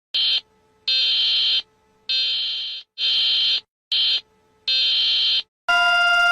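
Harsh electronic alarm buzzer sounding in six loud, uneven bursts with short silent gaps. A steady alarm tone of several pitches starts near the end.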